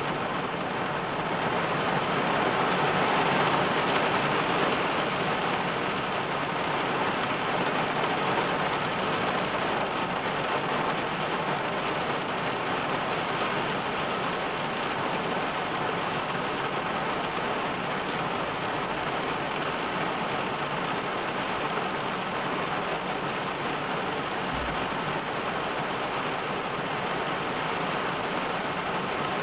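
Heavy rain falling on a car's roof and windscreen, heard from inside the cabin as a steady hiss, a little louder for the first few seconds.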